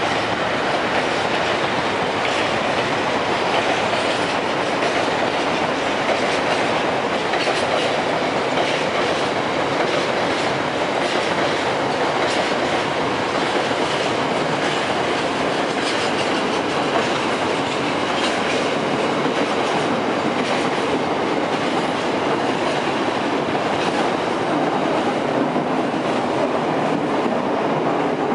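A long rake of freight tank wagons rolling across a steel-girder rail bridge close overhead: a steady rumble with repeated wheel clicks over the rail joints.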